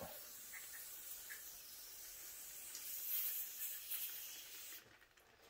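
Pressurised spray hissing steadily through a chainsaw carburetor as it is flushed out with brake cleaner and compressed air; the hiss stops near the end.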